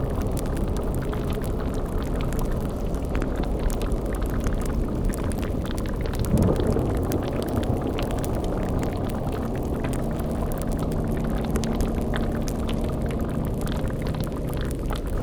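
Layered spooky sound-effect ambience: a steady low hum like a buzzing energy field under the bubbling of a boiling cauldron and fine fire crackle. A brief louder low surge comes about six seconds in.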